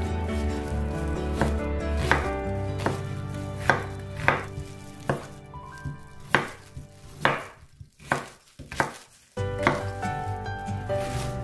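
Chef's knife chopping onion, then sweet potato, then green onion on a bamboo cutting board: separate sharp knocks of the blade through the vegetable onto the board, roughly one or two a second.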